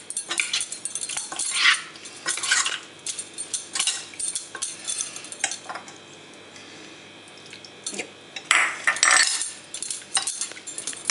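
Prawns being mixed by hand in cumin paste in a metal saucepan: irregular clinks and knocks of the pan and metal bangles against its rim, with wet squelching of the paste. The sound dies down for a couple of seconds past the middle, then picks up again.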